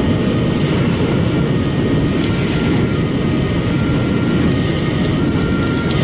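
Car cabin noise at motorway speed: a steady rush of tyre and wind noise with the engine's drone underneath.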